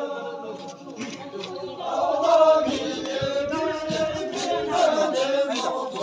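Buddhist chanting: voices in a sing-song recitation with long held notes.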